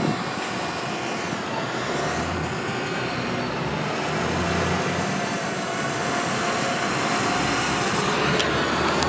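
Steady machine running noise, like a vehicle or motor heard up close, with a faint constant hum in it.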